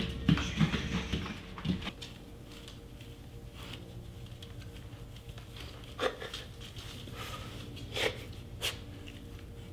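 Footsteps and dogs' paws pattering on a wooden floor and against a metal pen fence for the first two seconds. Then a quiet room with a few sharp clicks.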